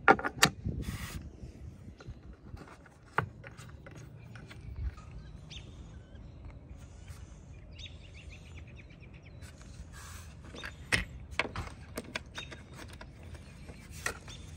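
Scattered sharp clicks and knocks of hard plastic roof-rack crossbar feet being handled against the roof rail: a cluster at the very start, one about three seconds in, and several more between about eleven and fourteen seconds. Birds chirp faintly in the background over a steady low outdoor rumble.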